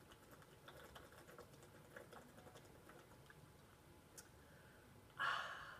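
A person drinking water from a plastic bottle: faint small clicks of swallowing and the bottle being handled, then a short breathy rush of air near the end.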